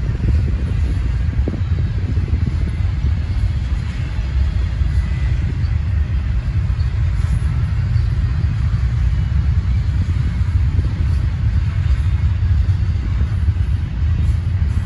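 Double-stack intermodal freight train's container well cars rolling past: a steady, even rumble of steel wheels on rail, heaviest in the low end.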